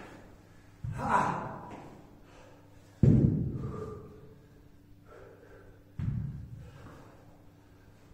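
A person working out with a kettlebell exhaling hard: three forceful breaths about three seconds apart, the middle one loudest, over a faint steady hum.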